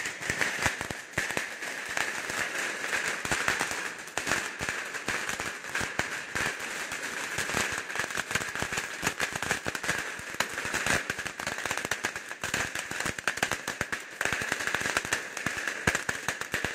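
A long string of firecrackers going off in a rapid, unbroken crackle of small bangs.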